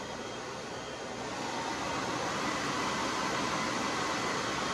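Large hair dryer running steadily, an even rush of air with a faint motor whine, blowing wet acrylic paint outward; it grows a little louder about two seconds in.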